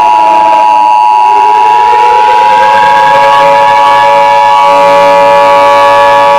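Emergency Alert System two-tone attention signal, a loud steady dual tone, sounding over a civil defense siren whose pitch rises for the first few seconds and then holds.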